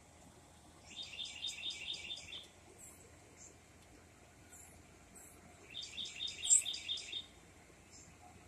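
A songbird singing two phrases of quick, evenly repeated notes, each about a second and a half long, one about a second in and the other near six seconds. A few faint high chips come between them.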